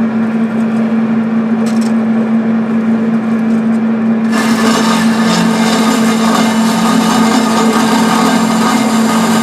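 Metal-cutting bandsaw running with a steady motor hum. About four seconds in the blade bites into steel all-thread and a loud, continuous cutting hiss joins the hum.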